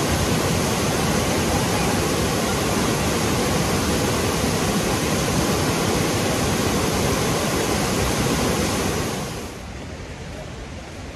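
Water pouring down a tiered stone fountain cascade: a steady, loud rush of falling and splashing water. It cuts off about nine seconds in, leaving a much fainter steady background hiss.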